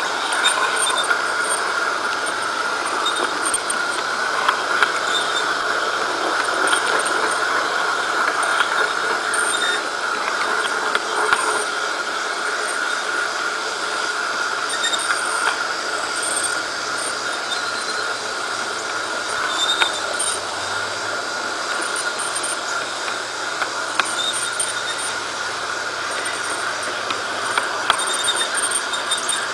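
LGB G-scale model streetcar running along garden-railway track: a steady whirr from its electric motor and gears, with wheels clicking now and then over the rail joints.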